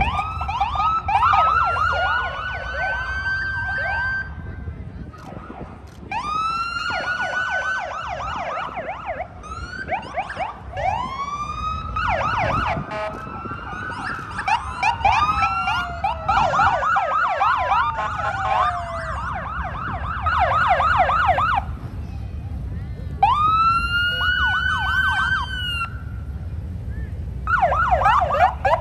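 Sirens of a column of police motorcycles sounding together: wails that rise and break off again and again, with a stretch of fast yelping in the middle. The motorcycle engines run low underneath.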